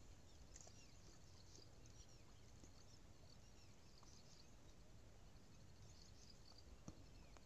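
Near silence with faint, scattered bird chirps and a soft tick near the end.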